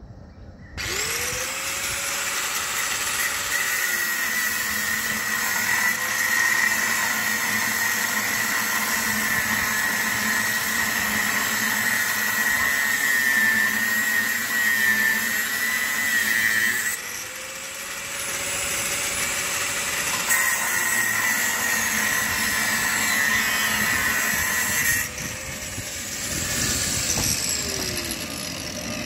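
Traction-converter whine from a pair of ÖBB electric locomotives moving slowly past: a steady high whine with a lower tone that glides up and then holds. The whine breaks off for a few seconds about two-thirds of the way through, comes back, and its lower tone glides down near the end.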